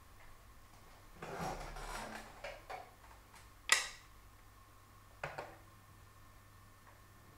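Wooden shogi piece set down on a wooden shogi board with one sharp click, after a stretch of rustling and a couple of small clicks as the player's hand moves. Two lighter clicks follow about a second and a half later.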